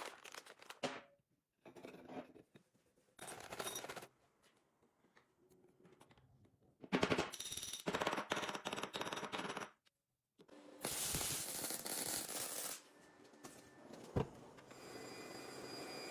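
A series of short metalworking sounds cut one after another with brief silences between them: a rapid clattering run of impacts, then a dense grinding hiss, a single sharp click, and a steady machine noise near the end.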